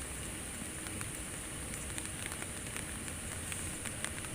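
Steady outdoor background hiss with faint scattered crackles and a thin, high-pitched continuous tone.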